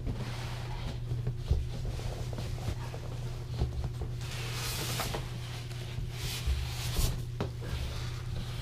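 Cardboard carton and its packing being handled: scattered knocks, scrapes and rustles, with a few louder rustling swells in the second half, over a steady low hum.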